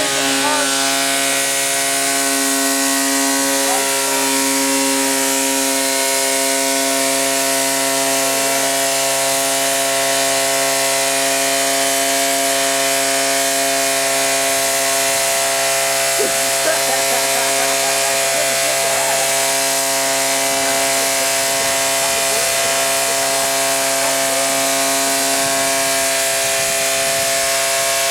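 Toyota car engine running at a steady, unchanging speed, a constant buzzing drone, while being run without a radiator to overheat.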